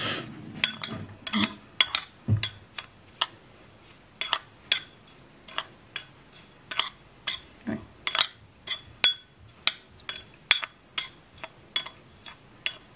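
Metal spoon stirring sugar and grated lemon zest in a small ceramic bowl, clinking against the bowl about twice a second with a short ringing note on each strike. A single dull knock about two seconds in.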